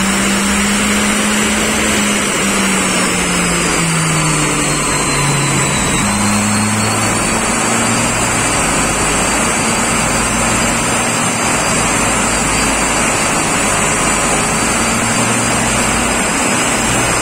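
Perodua Myvi's 1.3-litre K3 four-cylinder engine, fitted with a bolt-on turbo, running hard at about 5,000 rpm on a chassis dyno. Its pitch sags over the first few seconds, jumps back up about six seconds in, then holds steady under load.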